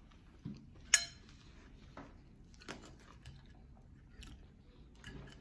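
A person chewing and eating banana fritters with small mouth and plate noises, and a sharp ringing clink of tableware about a second in.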